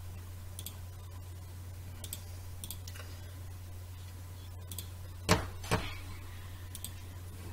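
Computer mouse clicking while files are picked, a few faint clicks and then two sharper clicks close together about five and a half seconds in, over a steady low electrical hum.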